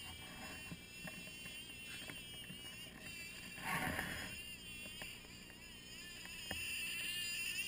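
Radio-controlled model Arctic Cat snowmobile running at a distance: a faint, high motor whine that wavers in pitch as the throttle changes, getting louder near the end as it approaches. A brief rush of noise comes about halfway.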